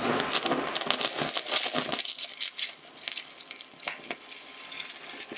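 Stick-welding arc of an Eagle 414 aluminum electrode crackling and popping on aluminum, dense and loud for about the first two seconds, then thinner, sparser crackles.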